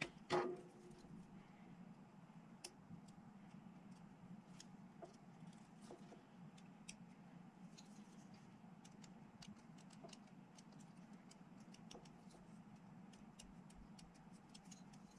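Near-quiet room tone with a low steady hum, broken by one sharp knock just after the start and many faint scattered ticks and clicks from hands handling small plastic model parts and a needle-tipped glue bottle.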